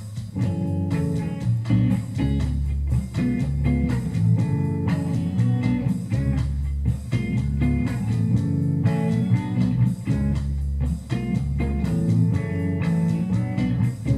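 Rock song intro: electric guitar and bass guitar come in about half a second in and play over a drum machine beat.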